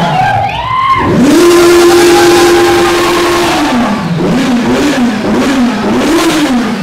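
Kawasaki Z900's inline-four engine revved hard while standing still. The revs dip and climb about a second in and are held high for about two seconds. Then they drop, are blipped up and down several times in quick succession, and fall away near the end.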